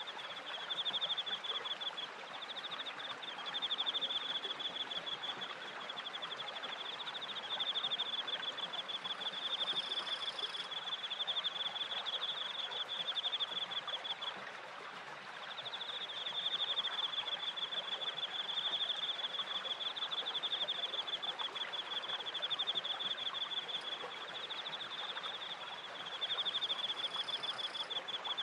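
A cricket trilling steadily in high pulsed phrases, pausing briefly about halfway, over the even rush of water splashing off a turning wooden waterwheel and a small stream.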